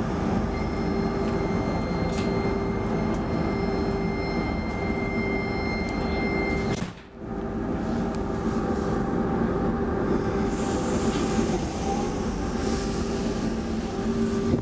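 The cabin sound of an X10 electric commuter train: a steady electrical hum over rolling rumble as it pulls away. A thin high whine sounds for about the first seven seconds and stops, and the sound briefly cuts out just then.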